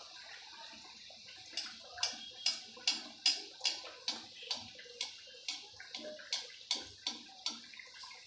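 Kachoris deep-frying in hot oil in a steel kadhai, with a steady sizzle. From about a second and a half in, a metal spoon working the kachoris in the oil strikes the kadhai in an even rhythm of about two to three clinks a second.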